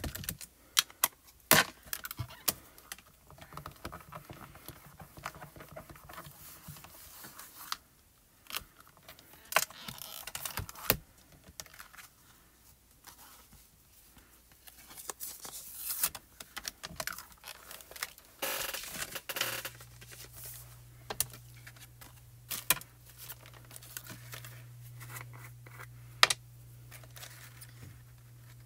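Crafting handling sounds: scattered clicks and taps of plastic as a VersaMark ink pad is pressed onto a stamp in a mini MISTI stamp positioner, with paper rustling as the stamped card is lifted out and handled. A low steady hum comes in about two-thirds of the way through.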